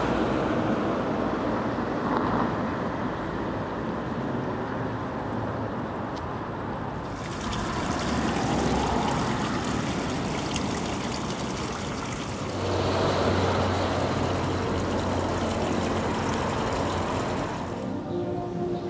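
Low, steady rumble of city street traffic; about seven seconds in, the splashing of fountain water comes in and runs until near the end, with a steady low hum joining it about halfway through.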